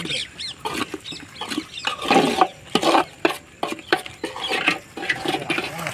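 Metal spoon stirring a curry in a large aluminium pot, clinking and knocking against the pot's sides in quick irregular clicks, with a few louder knocks about two seconds in. Short high chirping calls sound in the background.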